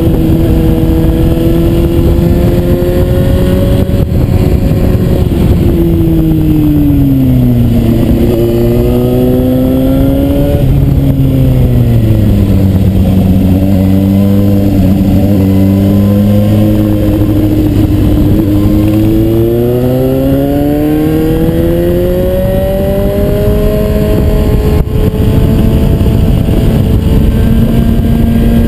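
Suzuki GSR 750's inline-four engine heard while riding: revs fall in two steps as it slows for a bend, hold low for a few seconds, then climb steadily as it pulls out of the bend and level off. A steady rush of wind and road noise runs underneath.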